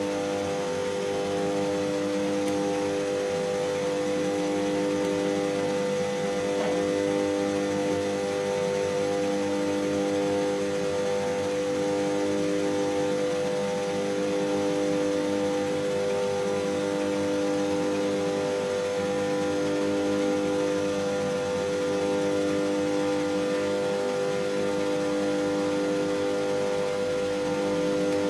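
Stand-up tanning booths running: a steady hum and whir from the cooling fans and UV lamp ballasts, with a few of its tones slowly beating, swelling and fading about every two and a half seconds.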